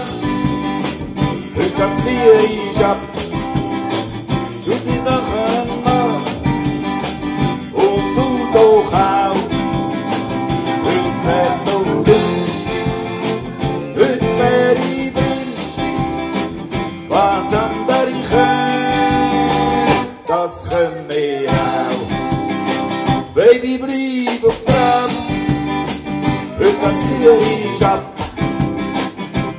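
A small acoustic band playing a tune: strummed acoustic guitars and a button accordion over tuba bass and drums.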